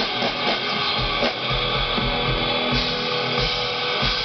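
Live rock band playing an instrumental passage, electric guitar over bass and drums, with a steady kick-drum beat.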